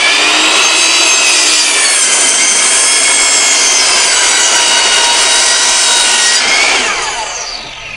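RIDGID sliding compound miter saw running at full speed with a high whine as its blade cuts through a wooden board. Near the end the motor is released and the blade winds down, the whine falling away.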